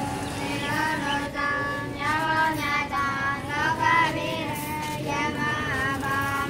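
High-pitched voices singing a melody over a steady low drone.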